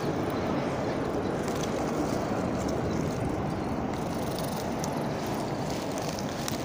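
Calico cat purring steadily, a contented purr while it is stroked on the head and cheek.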